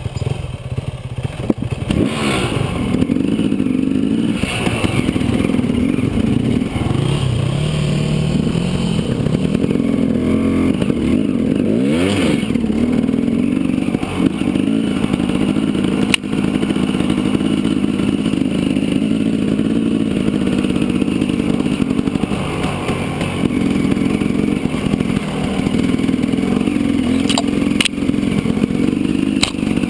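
Dirt bike engine running at low trail speed, its pitch rising and falling with the throttle, with clatter from the bike over rough ground and a few sharp clicks near the end.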